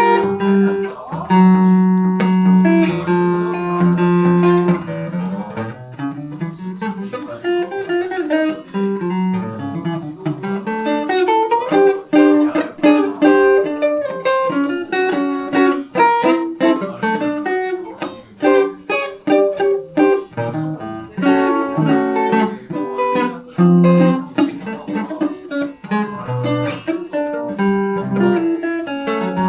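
Van Zandt Telecaster electric guitar played through a Roland JC-120 amp in an instrumental blues passage, with no singing. It opens on a few held notes, then moves into quick picked single notes and chords.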